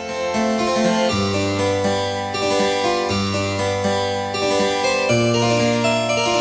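Background music: a keyboard piece with a harpsichord-like sound, moving notes over long held bass notes.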